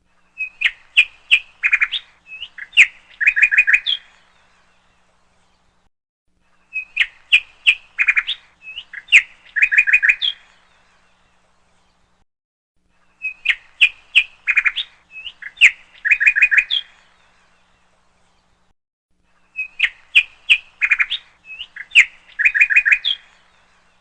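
A short phrase of quick bird-like chirps and trills, played four times over, identical each time, with a few seconds of silence between: a looped chirping sound clip.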